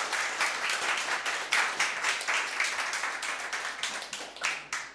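Audience applauding: a dense patter of many hands clapping that thins and stops just before the end.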